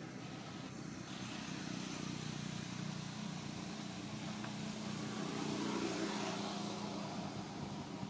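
Steady hum of a motor vehicle engine running, growing louder about five to seven seconds in.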